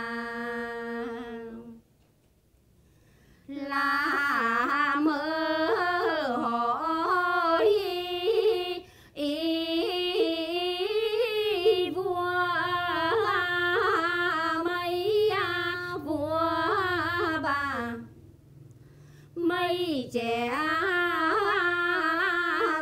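Women singing a Quan họ folk song unaccompanied, in long held notes that are ornamented and bend in pitch. The singing breaks off twice for a breath: about two seconds in, and again about four seconds before the end.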